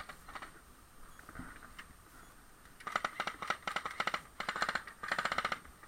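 Airsoft guns firing in several rapid bursts of sharp clicks, starting about three seconds in.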